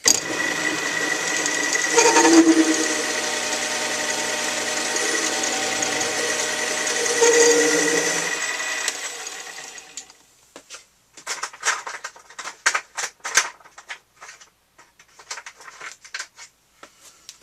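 Small metal lathe switched on and running with a steady motor whine for about eight seconds, swelling twice, then winding down. After that come scattered light clicks and taps of small metal parts being handled.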